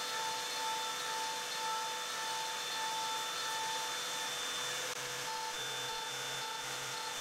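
PrintNC CNC router milling a plywood panel: the VFD spindle and the dust-shoe vacuum run steadily with a constant whine, while a higher tone cuts in and out in short pulses as the axes move.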